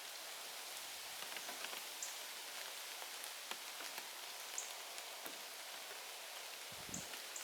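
Steady rain falling: an even hiss with scattered single drops ticking.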